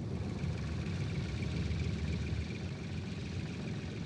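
An engine running steadily with a low rumble and a faint, thin steady whine above it.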